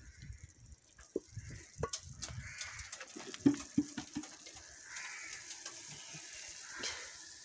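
Wooden spoon knocking and scraping against an aluminium cooking pot while stirring chopped tomatoes, in irregular sharp clicks with the loudest knock about halfway through.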